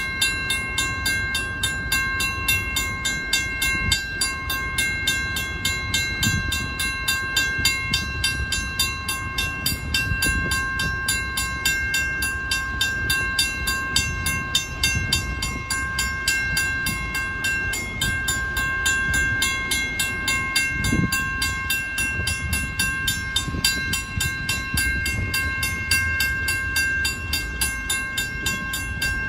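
First-generation WCH mechanical crossing bell ringing continuously with rapid, even strikes, over a low rumble.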